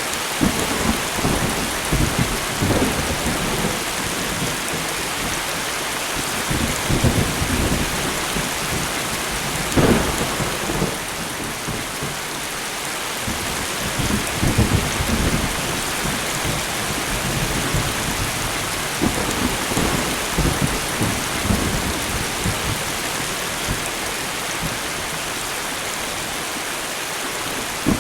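Steady light rain with repeated low rolls of thunder coming and going, the sharpest crack about ten seconds in.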